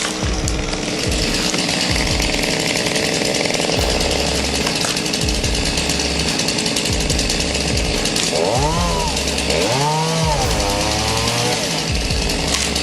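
Chainsaw engine running at high speed, revved up and back down twice about two-thirds of the way through. Background music plays underneath.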